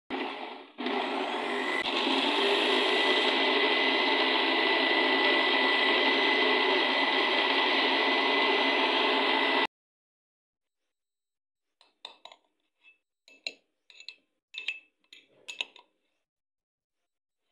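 Electric blender grinding fresh coriander and mint leaves into chutney. It runs steadily with a high whine and cuts off suddenly after about ten seconds. Later come a few light clinks of a spoon against a glass jar.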